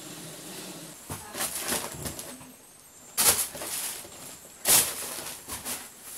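Rustling of bedding and a plastic sheet, in several separate bursts, as a man lying on a bed is handled.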